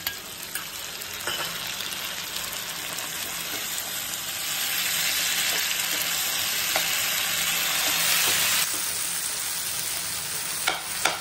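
Curd sizzling in hot oil in a pan of frying onions, tomatoes, green chillies and garlic, stirred with a metal slotted spoon. A steady sizzle that grows louder over the first few seconds and drops abruptly about eight and a half seconds in, with a couple of sharp clicks near the end.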